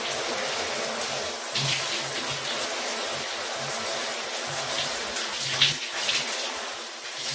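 Steady rushing water, like a shower or heavy rain, with a few brief splashes.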